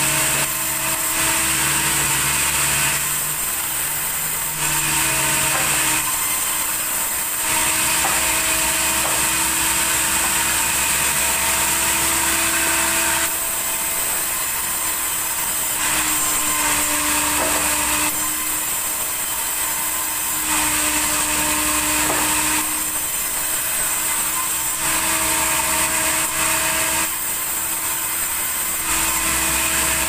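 Sawmill band saw running continuously and ripping planks of red tasak wood, pass after pass, a brighter hissing cut alternating with a duller stretch every few seconds. Its steady hum dips slightly in pitch during a couple of the cuts.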